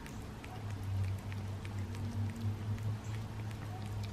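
Two cats licking a frozen cat treat paste pushed out of a plastic squeeze tube: quick, irregular wet licking clicks. A steady low hum runs underneath.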